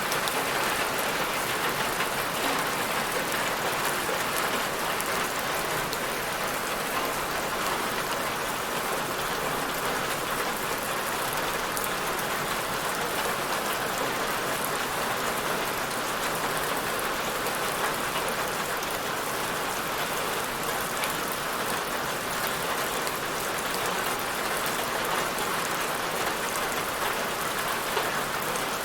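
Steady rain falling on a surface, an even hiss with fine patter of drops and no change over the stretch.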